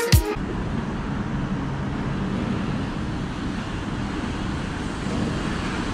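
A dance-music beat cuts off right at the start, then a steady rumble of city traffic and street ambience with a faint low hum.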